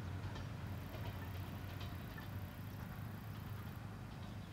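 Low steady rumble of a distant single-car diesel railcar running away along the line, with faint scattered ticks over it.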